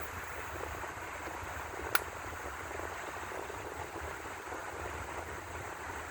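Steady hiss of outdoor background noise with a low rumble underneath, and one sharp click about two seconds in.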